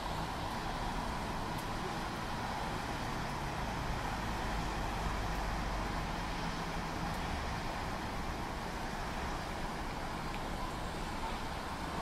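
Steady road traffic noise from a nearby street: a continuous low rumble with an even hiss over it.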